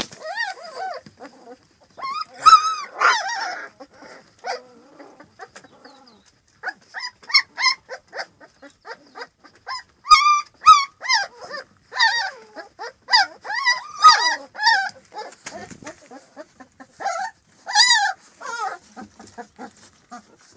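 Akbash puppies whining and yelping: many short, high-pitched cries that bend in pitch, coming in clusters with brief lulls between.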